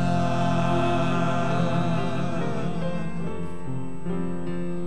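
Male vocal quartet holding one long sung note in harmony on the word 'my', with piano accompaniment underneath; the chord shifts a few times as the note is held.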